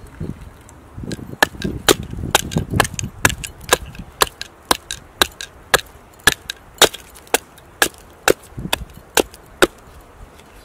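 Small hatchet chopping into a wooden block held upright on a stump, roughing out a spoon blank. About eighteen sharp strikes in a steady rhythm of roughly two a second, starting a little over a second in and stopping near the end.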